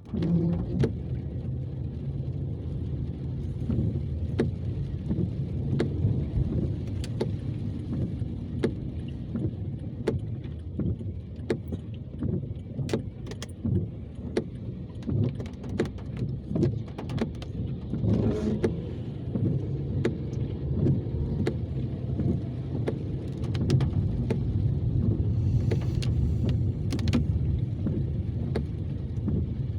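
A car driving: a steady low rumble with frequent short, sharp clicks and knocks throughout.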